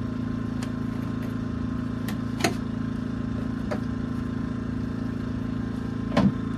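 A steady low mechanical hum, with a few short knocks and clicks over it; the loudest knock comes near the end.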